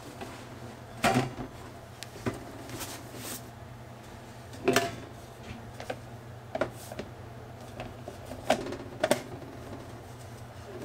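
Sharp metal clanks and knocks, about six, irregularly spaced, as the stainless inner pot and its fold-down handle of a Shuttle Chef vacuum cooker are worked against the insulated outer container; the inner pot is stuck and won't lift out. A steady low hum runs underneath.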